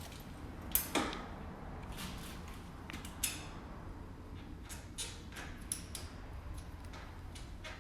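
A few scattered sharp clicks and knocks of a bicycle wheel and its parts being handled, with a short metallic clatter about a second in.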